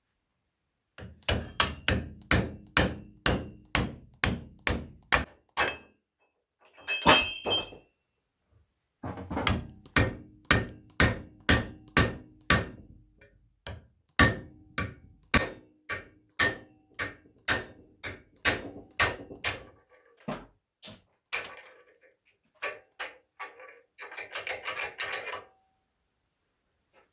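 Hammer blows on a steel punch driving the old wooden handle stub out of a hatchet head's eye, the head held in a bench vise: sharp metallic strikes about two to three a second in two long runs, then a few scattered knocks. A short scraping sound comes near the end.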